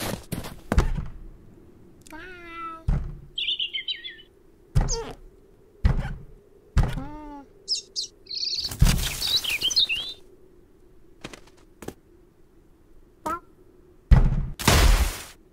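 Cartoon foley for an animated cat hunting a bird: a run of thumps and knocks as the cat pounces and leaps at a wooden door, two short runs of chattering calls from the cat, and a small bird chirping. Near the end comes a loud rushing thud, fitting a load of snow sliding off the roof onto the cat.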